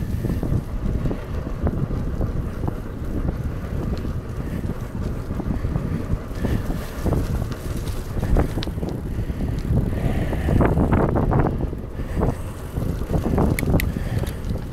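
Wind buffeting the microphone of a handlebar-mounted camera on a moving bicycle, a steady rumble, with tyre noise and scattered clicks and rattles from the bike, more of them in the second half.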